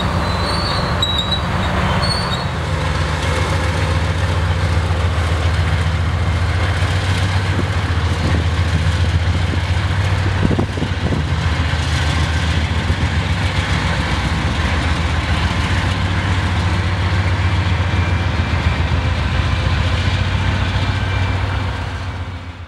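Diesel locomotive of a CSX rail train running with a steady low hum as the train moves along the track. A high thin wheel squeal is heard in the first couple of seconds.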